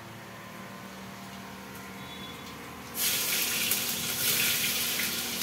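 Cumin seeds sizzling in hot oil in a pan: a loud, even sizzle starts suddenly about three seconds in, after a faint steady hum.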